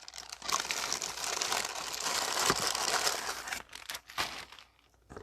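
Packaging crinkling and rustling as it is handled, a dense crackle that eases off and dies away after about four seconds.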